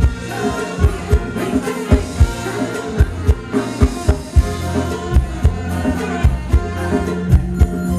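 Live band playing an upbeat Thai ramwong song over the stage PA: a steady drum-kit beat with a bass line and a melody above it.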